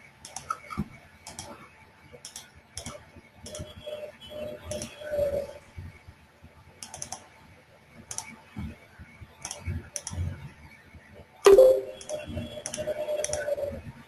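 Typing and clicking on a computer keyboard: scattered, irregular key clicks, with one louder knock about eleven and a half seconds in.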